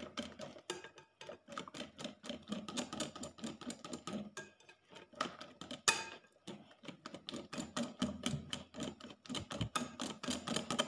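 Wire balloon whisk beating thin cake batter in a glass bowl, the wires clicking against the glass several times a second in a quick, uneven rhythm, with a brief lull a little after four seconds in.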